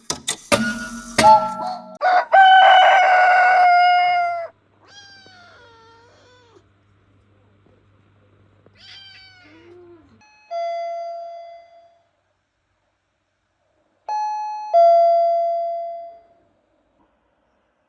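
Doorbell-style chimes: a single ringing chime, then a two-note ding-dong near the end, each note fading away. Before them come a brief clatter and a few loud pitched sounds that slide and waver in pitch.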